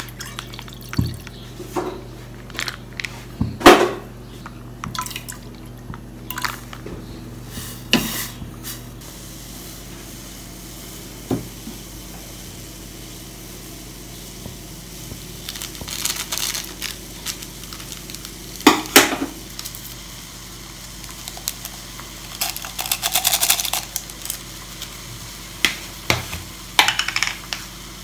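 Milk pouring from a plastic packet into a stainless steel saucepan, then scattered kitchen clatter: knocks of metal pans and utensils, the loudest about four seconds in, and several short rushing noises later on.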